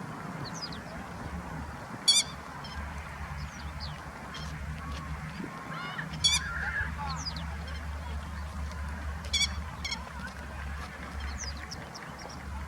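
Grey-headed lapwing giving loud, sharp nasal calls, four times, with fainter chirps of small birds and a steady low hum beneath.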